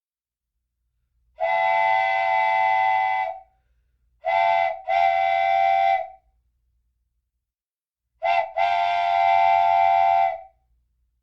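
Wooden train whistle blowing a steady chord of several pitches: one long blast, then two short-then-long pairs, with silence between the blasts.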